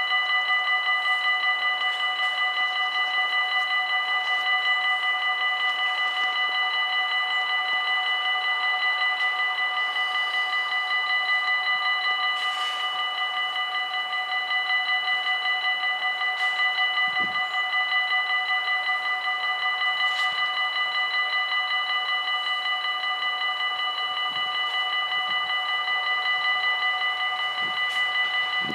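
Dutch automatic level-crossing warning bells ringing steadily with a fast, even ringing of several fixed tones. The crossing is closed: the barriers are down and a train is approaching.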